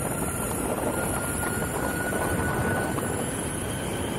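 Electric skateboard riding at speed: steady rumble of urethane-sleeved wheels rolling on asphalt and wind on the microphone, with a thin whine from the brushless hub motors that rises slightly, then fades.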